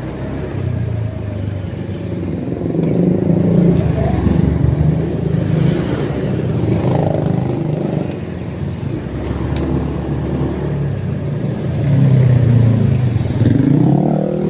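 A road vehicle's engine running on the move, swelling twice as it speeds up, with road noise.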